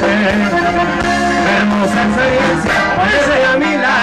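Live norteño band playing an instrumental passage between sung verses, with a button accordion, electric bass and guitar.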